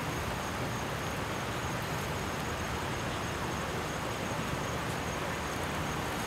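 Steady low hum of road traffic at a roadside, with a faint high steady tone over it.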